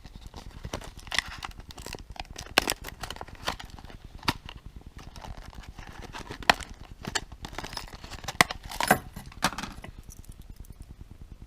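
Hands tearing and crinkling open a fishing lure's retail packaging: irregular rustling, crackling and sharp snaps that die away about ten seconds in.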